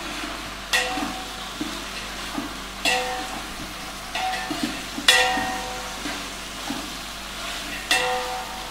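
Metal spoon stirring vegetables as they fry in oil in a large aluminium pot, with a steady sizzle; the spoon knocks against the pot four times, each knock ringing briefly, with lighter scraping clatters between.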